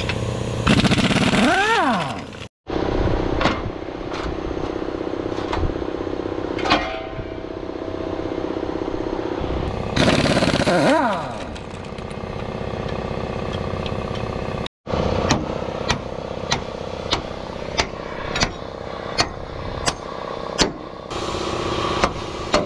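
Pneumatic impact wrench running on the bolts of a truck frame's leaf-spring hanger, its air motor whining up and down in pitch as it spins up and hammers. In the last part come sharp clicks at an even pace, about one and a half a second.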